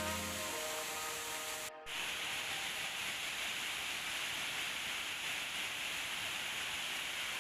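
Background music ends with a brief cut just under two seconds in, followed by the steady, hissing rush of falling water from a waterfall.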